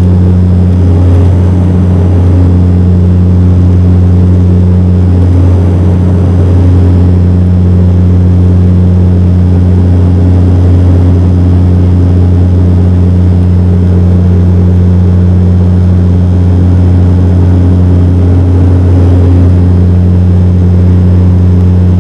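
Steady cabin drone of a Dash 8 Q400's Pratt & Whitney PW150A turboprops and six-blade propellers during the climb: a loud, deep, even hum with a strong low tone.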